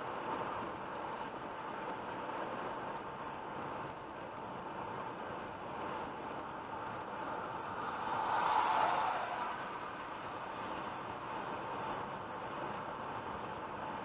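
Steady road noise heard from inside a car at highway speed: tyre and engine hum. About eight seconds in it swells for a second or so as another car overtakes in the next lane.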